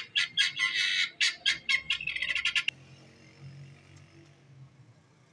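Poultry giving a fast run of harsh, squawking calls, about five a second, that cuts off suddenly a little over halfway through; after that only faint background.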